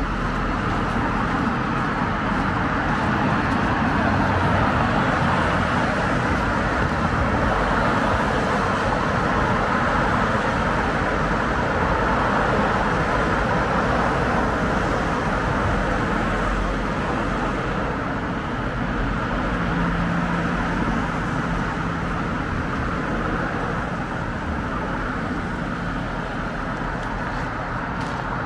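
Steady road traffic on a wide multi-lane road: cars passing below blend into a continuous rush of tyres and engines.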